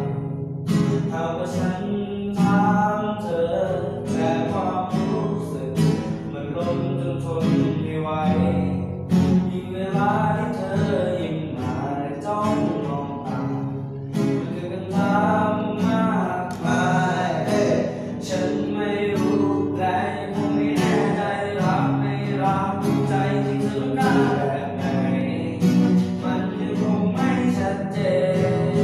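Acoustic guitar played as accompaniment to a male voice singing a Thai song.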